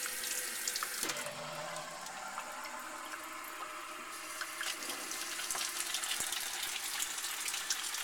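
Water running steadily from a kitchen tap into a stainless steel sink.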